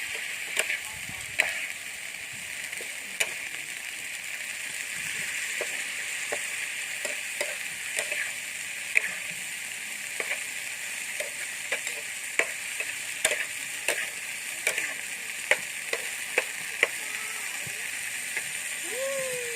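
Food frying in a pan: a steady sizzle with scattered sharp pops and clicks at irregular moments.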